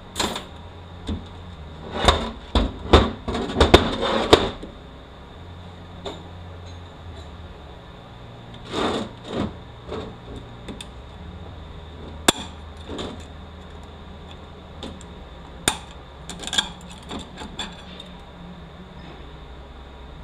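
Metal parts of a 4F27E automatic transaxle knocking and clinking as it is taken apart by hand, with a pick and with a clutch drum and clutch plates pulled from the case. A quick cluster of loud knocks comes about two to four seconds in, then scattered single clicks and knocks.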